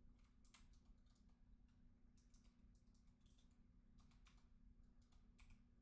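Near silence: faint, scattered computer keyboard clicks over a low steady hum.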